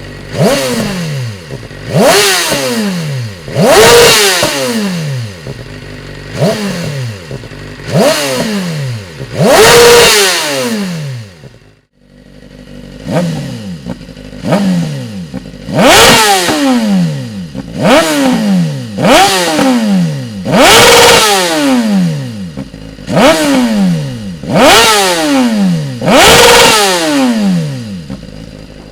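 BMW S1000RR inline-four engine being revved again and again through a Dominator decat exhaust. Each blip rises sharply in pitch and falls back more slowly, about every one to two seconds, with a short break about twelve seconds in.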